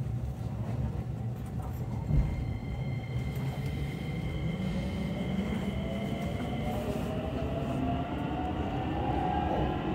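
Keikyu electric train heard from inside the car while running: a steady rumble of wheels on rails, with a single knock about two seconds in. High whines sound over it, and one rises in pitch through the second half.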